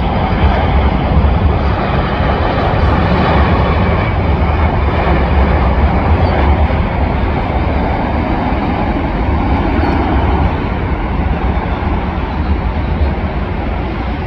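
Jet engines of a Boeing 787 airliner coming in to land: a loud, steady rumble and roar that eases slightly near the end.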